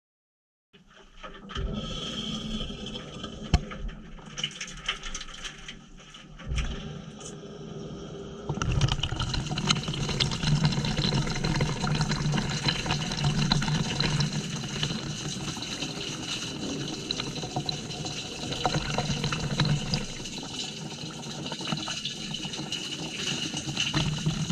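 Washing machine filling with water for a normal wash cycle, heard from a GoPro mounted inside the drum. The rush of water turns louder and steadier about eight seconds in, with a low hum underneath.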